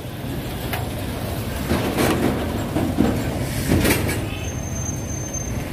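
Steady low rumble of street traffic, broken by a few sharp knocks and clatters about two, three and four seconds in. A thin high whine sounds near the end.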